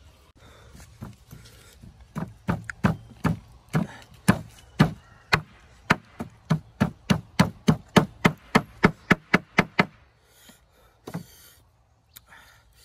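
Rapid chopping with a blade on wood: a long run of sharp strikes, about three a second, with one last strike after a short pause near the end.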